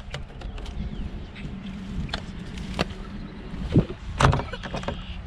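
Kayak paddle knocking against the plastic hull and splashing as it is worked through weeds, with two loudest knocks about four seconds in, over a steady low rumble.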